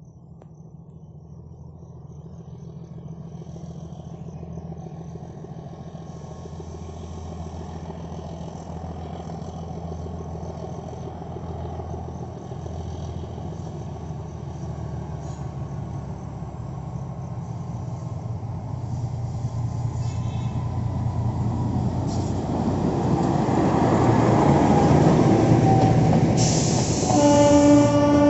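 Narrow-gauge diesel locomotive approaching and passing, its engine running with a steady low drone that grows louder as it nears, over rising wheel-on-rail noise. A short horn sounds near the end.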